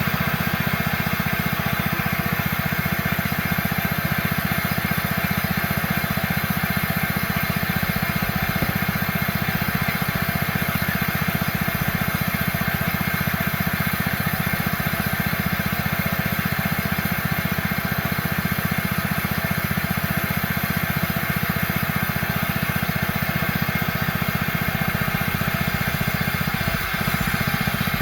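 Homemade bandsaw mill running steadily, driven by a small engine.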